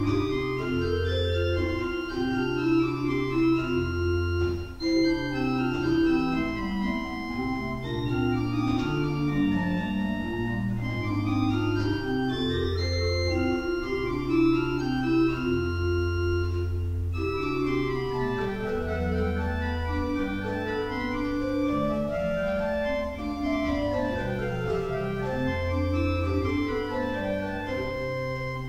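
Simon Pierce pipe organ playing in several voices: low pedal bass notes, each held about a second, move beneath steady lines on the manuals. In the second half, runs of notes rise and fall in the upper parts.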